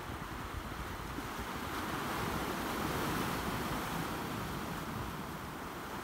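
Sea surf washing in over a rocky shore of boulders, swelling about two seconds in and easing again near the end.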